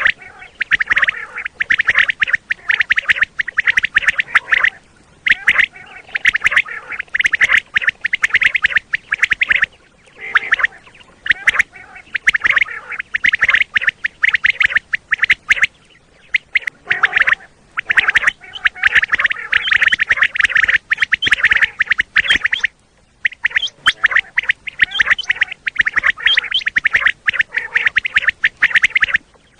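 Common quail calling: dense, rapid repeated notes coming in bursts of a few seconds, broken by brief pauses. This is the kind of quail call used to lure quail in for hunting.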